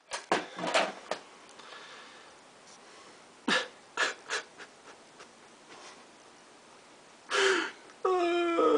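A man's sharp, heavy breaths and gasps in a few short bunches, the last one ending in a brief voiced groan. Music with a held horn-like note comes in near the end.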